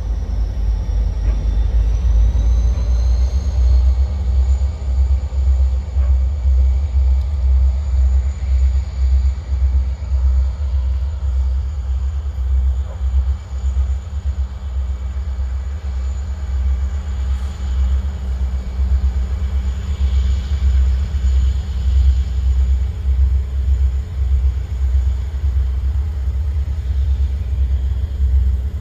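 Diesel switching locomotives running as they pull a tank car away: a low, uneven rumble with a faint steady hum.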